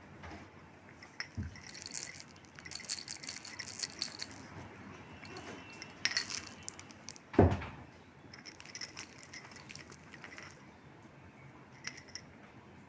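Small hard objects jangling and rattling in several short shaken bursts, with a single louder low thump about halfway through.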